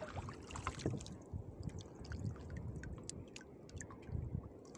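Water lapping at the hull of a small outrigger boat, with scattered small drips and ticks as a wet trap line is pulled in by hand.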